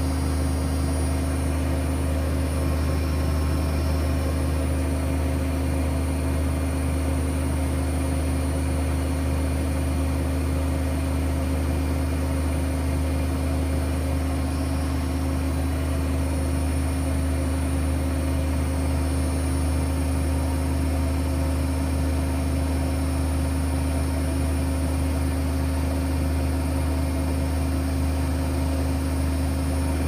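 AEG Öko-Lavamat 76740 front-loading washing machine in its final spin, set to 1600 rpm: the drum and motor run at a steady high speed, a constant drone with a steady low hum that neither rises nor falls.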